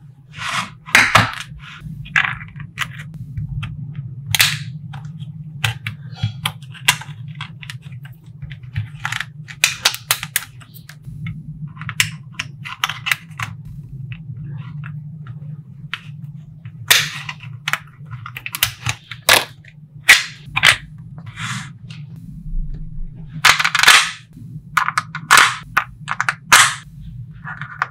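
Small neodymium magnetic balls clicking and snapping together at irregular intervals, some in quick rattling clusters, as they are handled and stacked. A steady low hum runs underneath.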